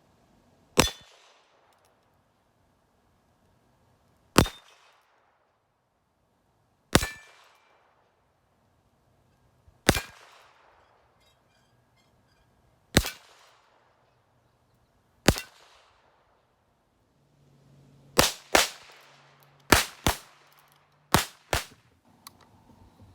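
A Heritage Rough Rider .22 rimfire single-action fired about a dozen times, each shot a sharp crack with a short ringing tail. The first six come slowly, a few seconds apart; near the end the shots come quicker, in three close pairs.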